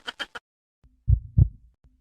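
Heartbeat sound effect: pairs of low thumps, lub-dub, about one pair a second, starting about a second in. Before it, a rapid rattling sound from another effect cuts off just under half a second in.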